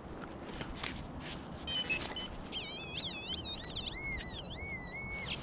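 XP Deus metal detector signalling a target: a few brief beeps about two seconds in, then a run of warbling electronic tones that rise and fall over and over. The detectorist reads the signal as a pull tab on its edge, half a pull tab or a bent pull tab.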